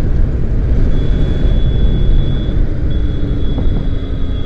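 Bajaj Pulsar RS200 motorcycle being ridden: a dense wind and road rumble on the rider's microphone, with the bike's engine running underneath. A thin, steady high tone comes in about a second in.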